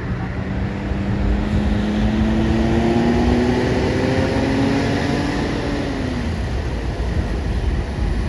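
A heavy vehicle engine, most likely a passing bus, pulling away. Its pitch rises slowly and steadily for about six seconds, then drops, over a constant low rumble of traffic.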